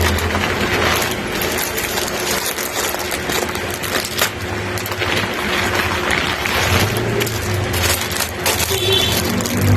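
Handling of packaged store goods: irregular clinks, knocks and rustling as items are unpacked and moved about.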